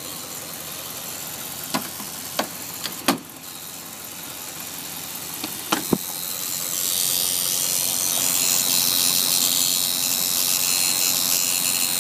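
Buzzing from a newly installed HID headlight kit's relay module while the truck's engine runs, growing louder and higher about halfway through. The cause is unknown, and the owner says everything is grounded. A few sharp clicks come in the first six seconds.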